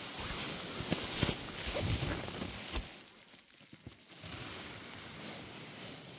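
Hammock fabric and mosquito netting rustling and being handled as someone climbs out of a camping hammock. Knocks and thumps come in the first three seconds, then a softer, steady rustle.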